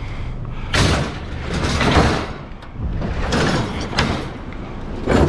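Pallets being handled and loaded, giving several rough scraping and knocking bursts about a second apart with a sharp knock near the four-second mark. Wind buffets the microphone underneath.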